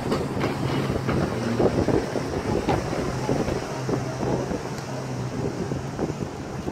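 Wind buffeting the microphone in uneven gusts, over a steady low hum from a distant motorboat engine that fades in and out.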